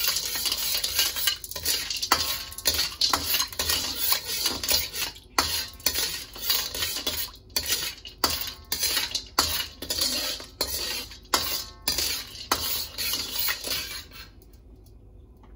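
Metal ladle scraping and clinking against a metal wok while stirring rock sugar in hot oil to melt it, a stroke about every half second, stopping about a second before the end.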